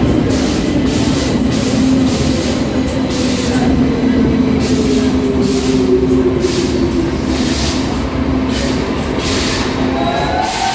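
Cx-series metro train pulling into the platform and slowing, with rail and wheel rumble under a steady hum and a whine that falls in pitch as it brakes.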